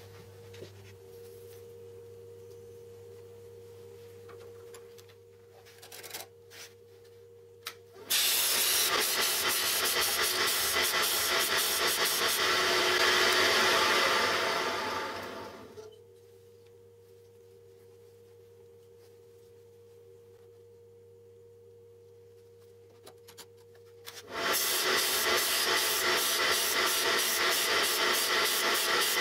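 Steel twist drill bit being ground on the spinning abrasive disc of a bench disc sander, sharpened in a wooden sharpening jig: a loud rasping hiss that runs about seven seconds and fades out, then starts again about 24 seconds in with a fast regular ticking. Between the two passes only a faint steady hum.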